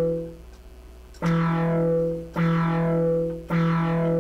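Modular synthesizer voice played by gates from the Gate Grinder's manual button: the same pitched note sounds three times, a little over a second apart, each note starting sharply and lasting about a second, while the previous note fades out at the start.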